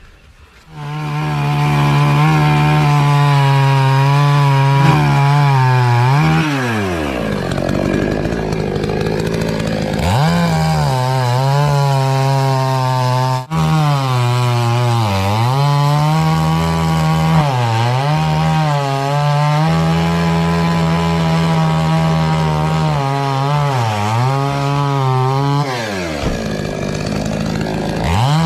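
Chainsaw running and cutting into a coconut palm trunk, starting about a second in. Its pitch sags repeatedly as the chain bogs down in the wood and climbs again as it frees up.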